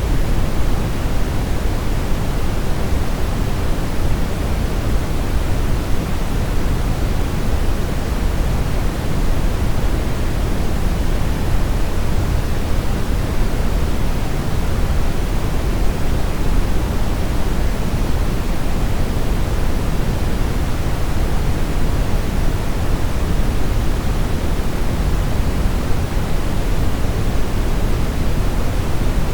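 Steady brown noise: an even, unbroken hiss-rumble weighted toward the deep end, with no changes.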